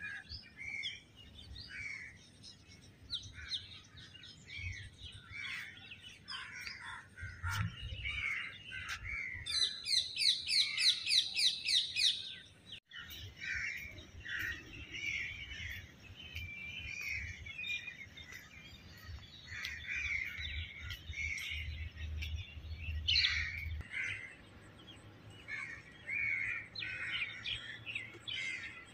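Many small birds chirping and calling outdoors, with a fast run of repeated high notes from one bird about ten seconds in.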